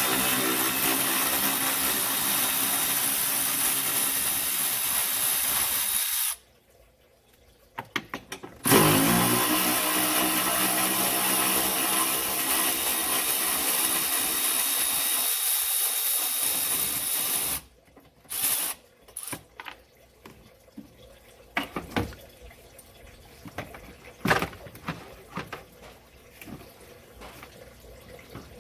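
A power driver spinning an 8 mm socket on a long extension to back out the air box bolts: two long steady runs, the second starting about nine seconds in with a rising whine. Afterwards, light clicks and knocks of parts being handled.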